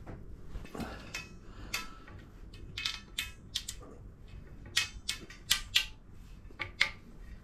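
Black plastic slot-cover strip being pressed by hand into the slot of an aluminium extrusion profile, clipping in with a string of irregular sharp clicks.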